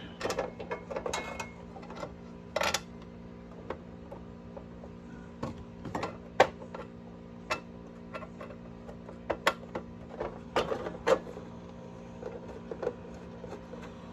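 Scattered small clicks and taps of screws and a screwdriver being fitted into a Favero fencing scoring box's case, with a steady low hum underneath.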